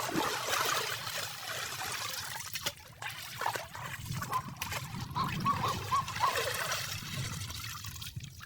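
Shallow water sloshing and trickling as it is disturbed, with a few faint wavering squeaks about five to six seconds in.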